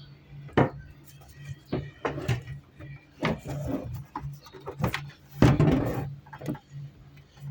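Irregular knocks and clattering of objects being handled, the loudest about two-thirds of the way through, over a steady low hum.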